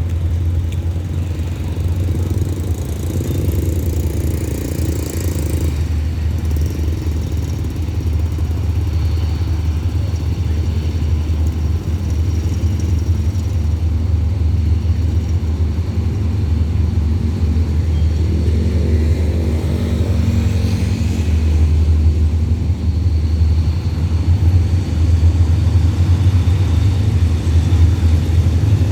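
Diesel engine of a Hitachi diesel-electric locomotive running with a steady low rumble, growing louder over the last several seconds.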